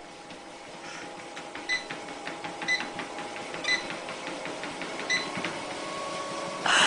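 Treadmill running with a steady whine. Short high pings come about once a second, five in all.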